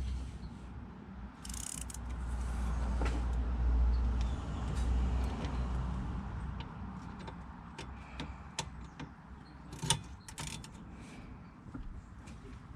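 Scattered clicks and knocks of hand tools being worked on a rear brake caliper, the sharpest about ten seconds in, over a low rumble that fades after the first six seconds.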